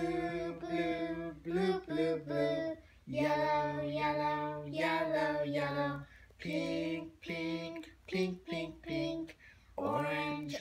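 A voice singing a simple song in held, steady notes broken by short pauses between phrases.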